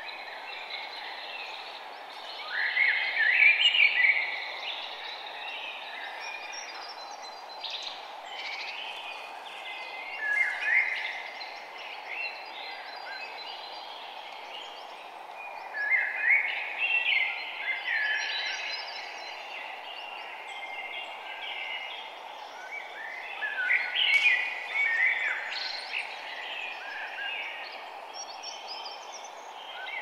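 Wild songbirds singing: short phrases of quick chirps and trills come again every six or seven seconds over a steady background hiss, the loudest phrase about three seconds in.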